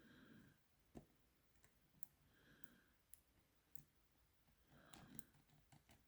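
Faint, scattered clicks of a Shield C30MKR combination padlock's wheels being turned a notch at a time while the shackle is pressed in to feel for the gates, with light handling rustle in between.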